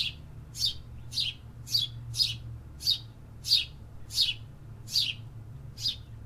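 A bird chirping over and over, about ten short, high chirps that each slide down in pitch, coming in a steady series roughly every half second to second.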